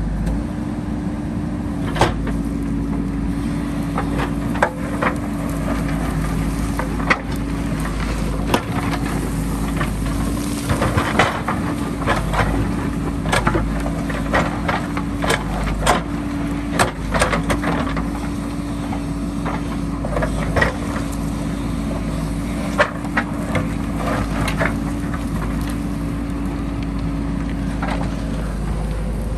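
JCB backhoe loader's diesel engine running steadily under work, with frequent sharp knocks and clatters from the bucket striking and scraping rock and debris.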